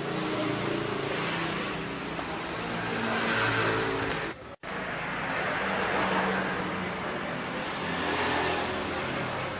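Car engine running steadily under a rushing hiss of water flowing into the radiator filler neck during a radiator flush. The sound cuts out briefly about halfway through.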